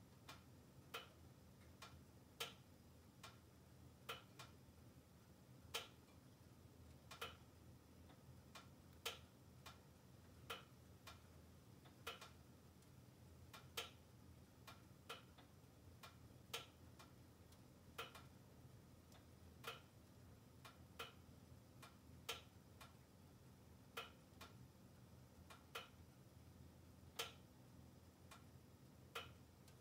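Logs crackling in a closed wood-burning stove: sharp single pops every second or two, unevenly spaced, over a faint low steady hum.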